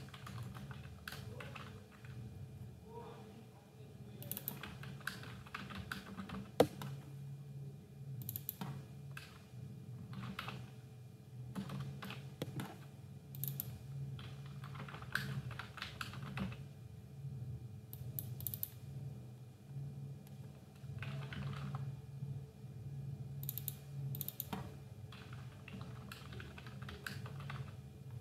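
Computer keyboard typing in uneven bursts of quick key clicks, with one sharper, louder click about six and a half seconds in. A steady low hum sits underneath.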